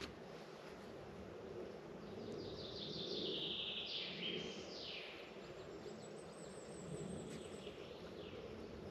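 A songbird singing: a loud run of quick trilled phrases that step down in pitch, starting about two seconds in, followed by a few faint high thin notes, over a steady background of outdoor ambience.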